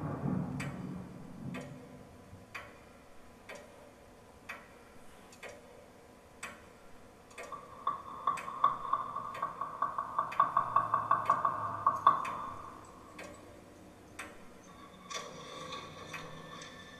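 Clock ticking, one sharp tick about every second. In the middle a rapid pulsing tone grows louder for about five seconds and then stops, and faint high tones come in near the end.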